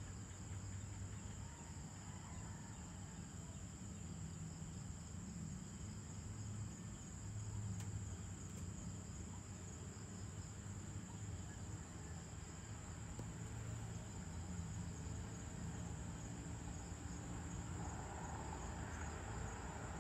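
Evening insect chorus, crickets or similar, keeping up a steady high-pitched trill over a low background rumble.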